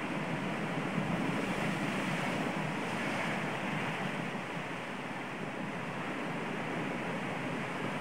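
Sea surf breaking and washing over a rocky shore in a steady rush, swelling a little about one to three seconds in.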